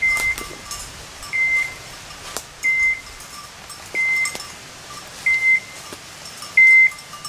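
Electronic beeper collar on a hunting dog, sounding a short high beep about every 1.3 seconds, six times, with faint clicks between the beeps.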